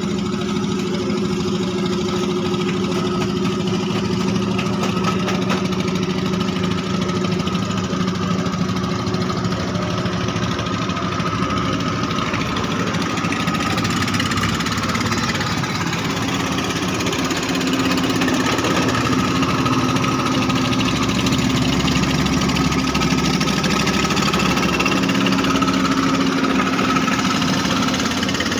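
Klotok river boat engines running steadily. About halfway through, a second engine note joins and the sound grows a little louder.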